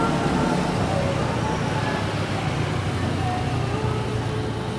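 Boeing 737-800 jet engines running at low power as the airliner rolls along the ground: a steady rumble with a faint whine.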